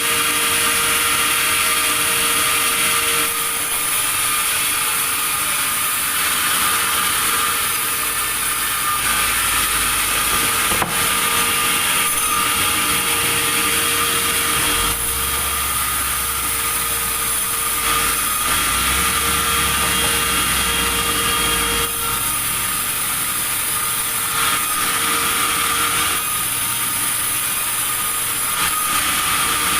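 Sawmill saw running steadily through wood, a continuous loud, mostly high-pitched noise with a steady hum, and a single sharp click about a third of the way through.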